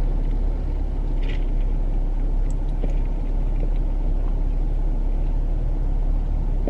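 Steady low rumble of a car idling, heard from inside the cabin, with a brief faint crunch of eating about a second in and a few small ticks.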